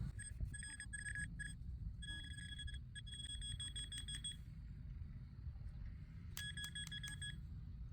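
Metal detector giving rapid beeps at one high pitch, in three runs, as it sounds off on a target in a clump of dirt, over a low rumble.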